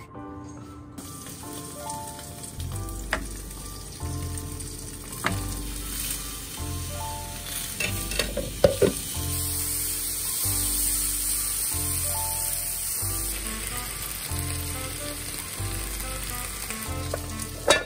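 Food sizzling in hot oil in a frying pan (gyoza, then fried tofu, tomatoes and shirataki noodles). It starts about a second in, is loudest around the middle, and has a few sharp clinks of utensils. Soft background music with a steady beat plays under it.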